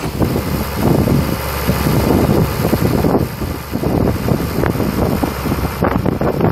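Wind buffeting the microphone in uneven gusts, over a steady low hum.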